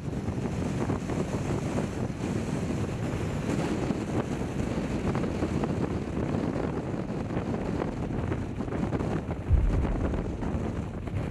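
Wind blowing across the microphone, a steady rushing, with a heavier gust buffeting the microphone with a low rumble near the end.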